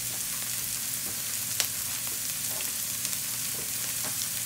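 Finely chopped onions and garlic sizzling steadily in hot oil in a pan as they sauté toward translucent, with a few light clicks.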